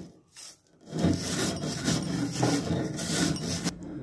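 Stone roller (nora) rubbed back and forth over a stone grinding slab (shil), crushing dry-roasted flattened rice into powder: a gritty grating in repeated strokes. It starts about a second in and stops just before the end.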